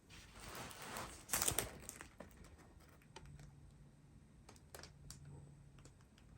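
Soft rustling of a rolled diamond painting canvas being handled, twice in the first two seconds, followed by a few scattered light clicks and taps.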